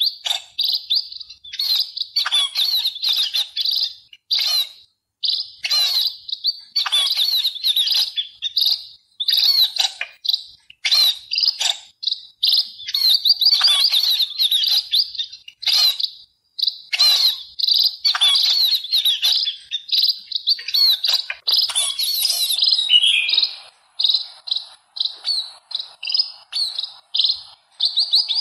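Small songbirds chirping and twittering in quick, dense runs with short pauses. Near the end this gives way to a series of short, evenly spaced chirps, about two a second.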